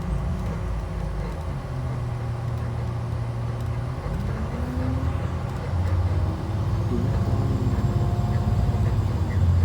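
Interior noise of a 2012 IC RE school bus: its rear-mounted MaxxForce DT diesel engine running with a low drone while the bus drives, growing louder about six seconds in.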